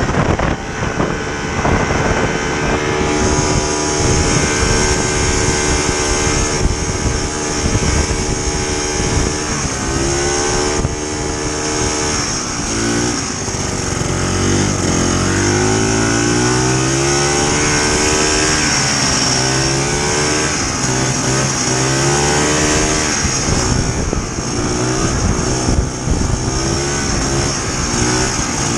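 Vintage snowmobile's two-stroke engine running under load, its pitch rising and falling repeatedly as the throttle is worked, with a steady hiss above it.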